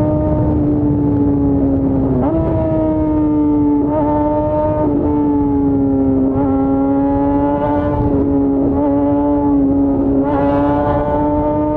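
Yamaha FZ6's 600 cc inline-four engine running under way at steady high revs, its pitch holding nearly level with a brief dip and rise about two seconds in and small throttle wobbles after.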